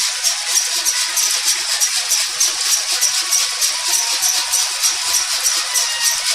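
Coconut dehusking machine running, driven by a 0.5 HP three-phase motor through a chain-and-sprocket and worm gearbox: a steady, fast rattle of about five strokes a second, with a faint whine underneath.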